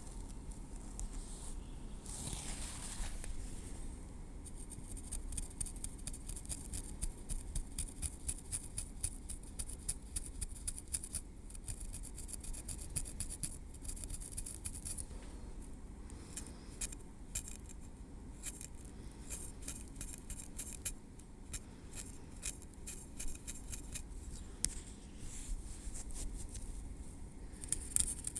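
Tweezers working through hair at the scalp: rapid fine ticking and scraping, densest from about five to fifteen seconds in and again near the end, with a soft swish early on.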